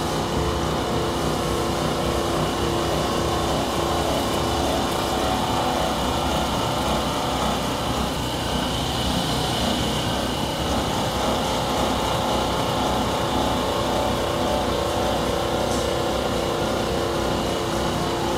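Automatic arc-surface polishing machine running, its motor-driven cloth buffing wheels spinning: a steady machine hum with a constant whine over a noisy bed, and a brief swell of higher hiss about halfway through.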